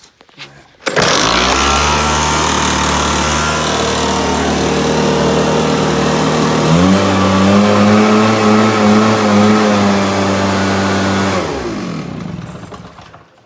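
Echo PB-770 backpack blower's two-stroke engine starting abruptly about a second in and running steadily. About seven seconds in its speed steps up as the new throttle cable is opened, then near the end it winds down and stops.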